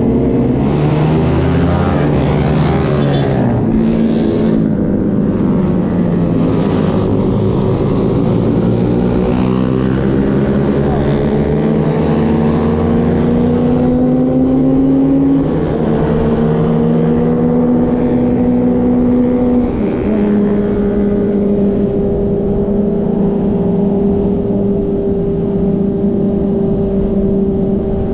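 Yamaha R15's single-cylinder engine running through an aftermarket exhaust fitted to sound like a four-cylinder, heard from the saddle: the note climbs twice and drops back, then holds steady in the last third as the bike slows to a stop. Wind rushes over the microphone.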